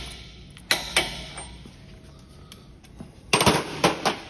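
Sharp metallic clanks of steel hand tools: one clank about a second in, then a quick cluster of clanks near the end.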